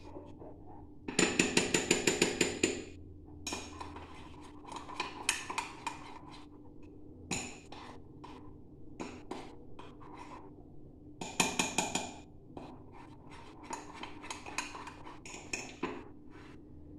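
A kitchen utensil clinking against dishes at the counter while dough ingredients are mixed. It comes in two quick runs of rapid strokes, one about a second in and one past the middle, with scattered single clinks in between.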